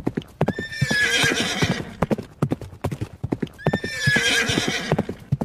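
Horse sound effect: hooves clip-clopping at a steady pace, with a horse whinnying twice.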